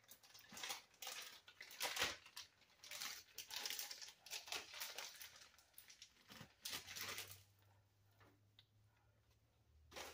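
Plastic bag crinkling and rustling faintly as frozen chicken is worked out of it into a soup pot, stopping about three quarters of the way through.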